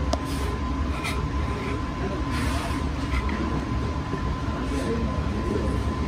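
Steady low background rumble with a thin, steady high tone running through it, and a few faint clicks.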